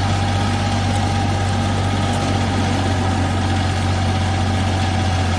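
Forage grass chopping machine with a rotating chopper shaft, running steadily with a strong low hum and a steady higher whine.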